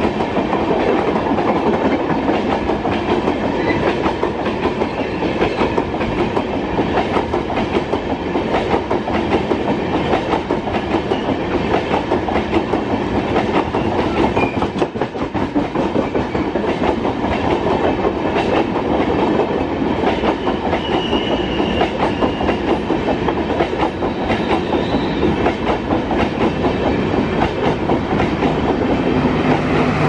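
LHB passenger coaches passing close by at speed, their steel wheels clattering rapidly and steadily over rail joints. Near the end the rear luggage brake and generator car arrives, adding a steady low hum from its diesel generator sets.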